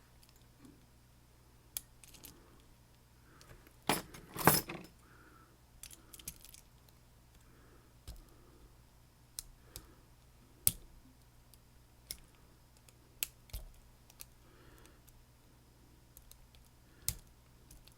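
Scattered small metallic clicks and clinks from handling a Kwikset SmartKey lock and metal lock tools, with a louder jangling rattle about four seconds in.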